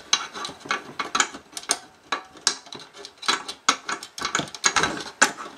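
A small connector on a circuit board being twisted loose by hand, giving a rapid, irregular run of metallic clicks and rattles; it is stiff to turn.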